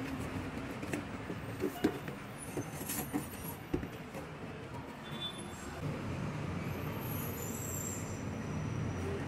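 Steel scraper blade scraping rust and dirt off a rusty metal tray: scratchy rasping with scattered clicks and knocks. A low steady rumble builds in the second half.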